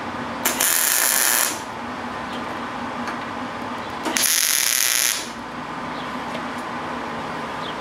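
MIG welder striking two tack welds on steel tubing, each a hiss of the arc lasting about a second: the first about half a second in, the second about four seconds in. A steady low hum runs underneath.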